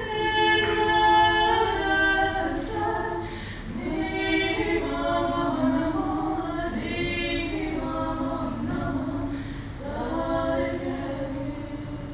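Two women's voices singing unaccompanied in harmony, with long held notes.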